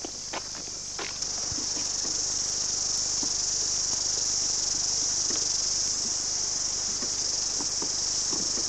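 Cicadas shrilling in the surrounding bush: a steady, high-pitched insect chorus that swells about a second in and then holds. A few sharp knocks sound in the first second.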